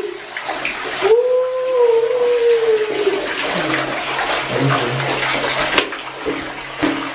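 Coca-Cola being poured from bottles into a bathtub: liquid splashing steadily into the tub, with a held, wavering tone for about two seconds starting a second in.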